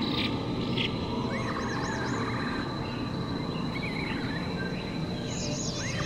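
Forest nature ambience: assorted birds chirp and warble, with bursts of calls about a second and a half in and again near the end, over a steady high insect drone and a constant low rushing noise.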